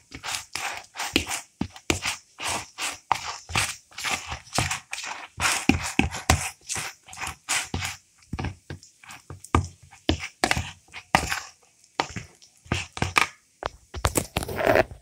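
Hands mixing and kneading a coarse semolina and flour dough with lukewarm water in a plastic bowl, making rapid, irregular strokes with short gaps.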